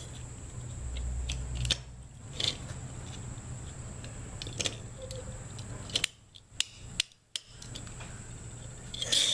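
A small metal machinist's hand tool being worked by hand, its crank turned in and out: scattered sharp metallic clicks and rattles.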